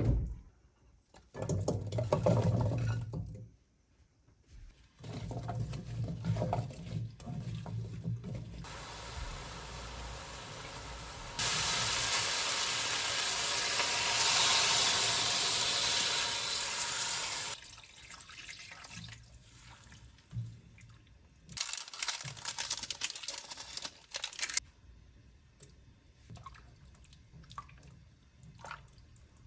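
Kitchen tap running into a sink: a strong, steady stream for about six seconds in the middle, with weaker runs of water before and after it and a few knocks in between.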